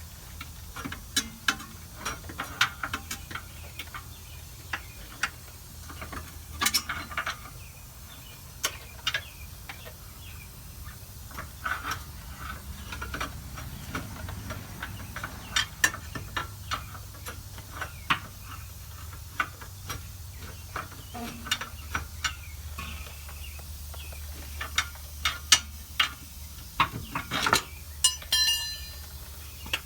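Scattered metallic clicks, taps and knocks as a worn rear shock absorber is worked and popped off its lower mounting stud, with a brief metallic ring near the end.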